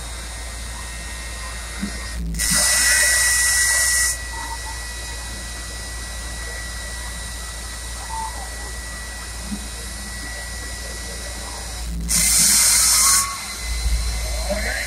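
Jet truck's turbine engine running with a steady high whine and hiss. It rises twice into a loud rush of hiss, about two seconds in for nearly two seconds and again about twelve seconds in for about a second. Near the end a deep rumble comes in as flame shoots from its stacks.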